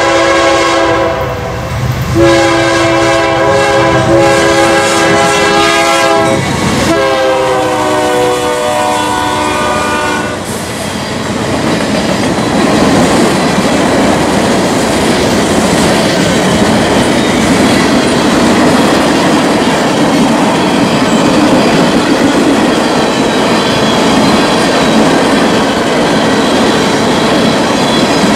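A locomotive's multi-chime air horn sounds as a train passes. A blast ends about a second in, and a long blast starts at about two seconds. That long blast drops in pitch at about seven seconds as the locomotive goes by and stops at about ten seconds. After that the train's cars roll past in a steady rumble with clacking wheels.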